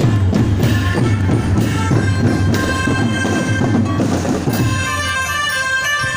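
Music with a drum beat; about four and a half seconds in, the low drumming drops out and sustained melodic notes carry on.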